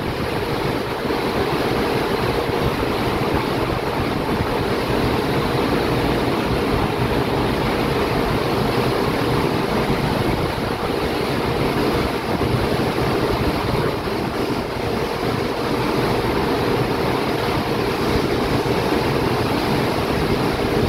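Churning, rushing water of a ship's wake with wind buffeting the microphone, a steady, unbroken wash of noise. A faint steady hum from the ship runs underneath.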